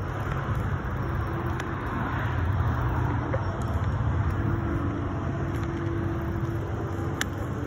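Wind and road noise from riding an electric bike along a paved road: a steady low rumble, with a faint steady hum that drops in and out.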